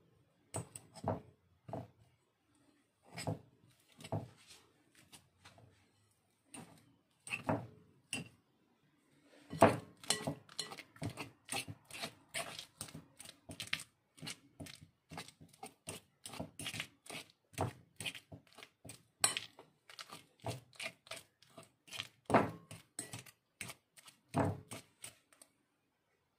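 Metal fork mashing bananas in a glass bowl, its tines knocking and clinking on the glass. A few scattered strikes at first, then rapid strikes, several a second, from about ten seconds in until they stop just before the end.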